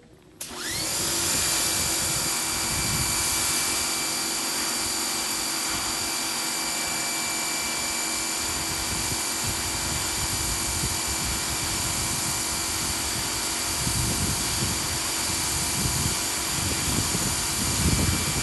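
Electric pressure washer starting up about half a second in, its motor and pump quickly rising to a steady whine over the hiss of the water jet from the 15-degree nozzle.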